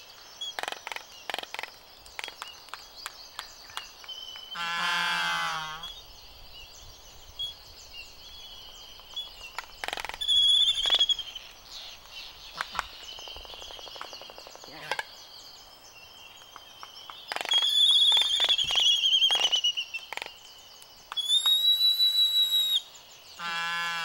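Laysan albatross pair in courtship dance: sharp bill clacks scattered throughout, a low drawn-out call about five seconds in and another near the end, and several high thin whistled notes in between.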